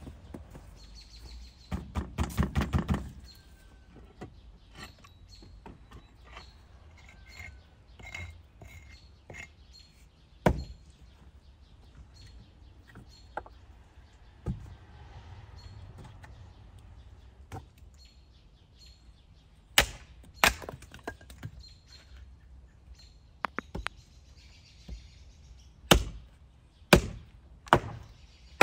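An axe chopping firewood on a chopping block: separate sharp wooden thunks, the last three about a second apart, are the loudest sounds. About two seconds in there is a brief rapid clatter, and small birds chirp faintly.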